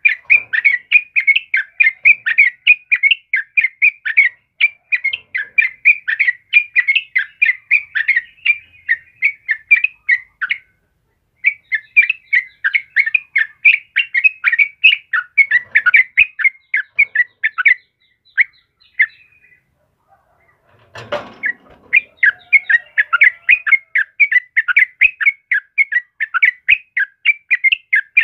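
Yellow-vented bulbul (trucukan) singing a fast, continuous run of short, chattering notes, several a second. The run breaks off briefly about eleven seconds in and again for a few seconds later on, where a short rustle or thump is heard.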